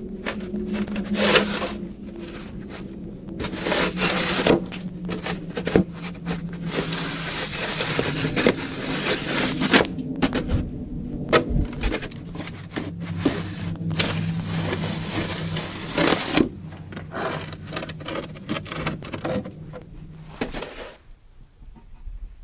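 Footsteps crunching through snow, with irregular scrapes and rubs from the phone being handled, over a steady low hum. The crunching and the hum stop about a second before the end.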